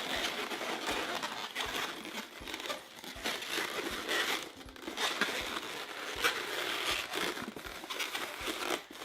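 Inflated latex modelling balloons rubbing and twisting against each other as they are handled and joined, an irregular stream of small rubbing noises and clicks.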